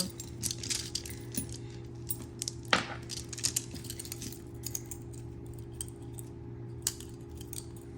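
Tangled metal jewelry chains and small pieces clinking and jingling as they are worked apart by hand, with a sharper clink about three seconds in.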